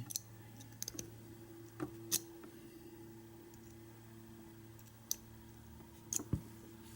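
Scattered small clicks and taps of metal tools against an American 600 padlock, a few at a time with pauses between, as a bypass tool is worked at the lock whose pins are frozen. A faint steady hum underlies them.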